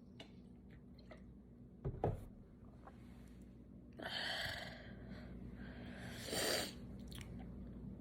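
A person's short, low burp about two seconds in, followed by two breathy exhales, the second louder.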